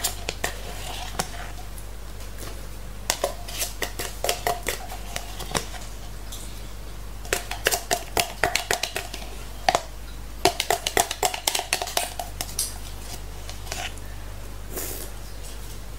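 Plastic spoon scraping and tapping around the inside of a nearly empty plastic cup, in several bursts of quick clicks and scrapes with short pauses between them.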